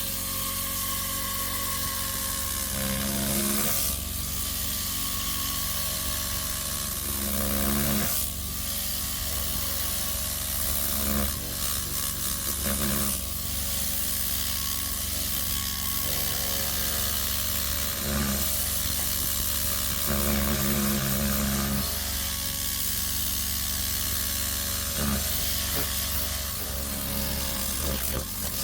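Compressed-air blow gun hissing steadily, varying in strength as it is worked, over a steady low hum.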